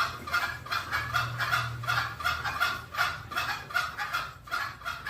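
Green junglefowl calling: a rapid, even series of short clucking notes, about three to four a second.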